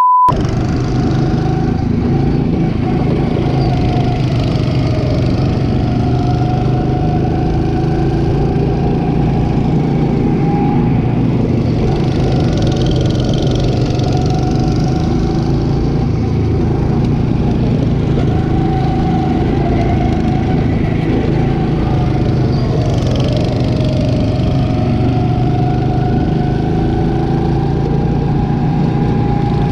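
Go-kart engine running, its pitch rising and falling gently as the throttle is worked around the track.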